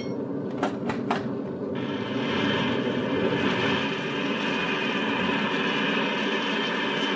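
Radio-drama sound effect of a B-50 bomber's engines droning in flight with rushing air, as the crew bails out. Three quick sharp knocks come about half a second to a second in, then the steady drone and air noise carry on.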